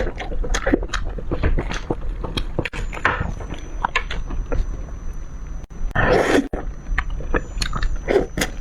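Close-miked eating of fish: wet chewing with frequent sharp mouth clicks and smacks, and a louder breathy or slurping burst about six seconds in.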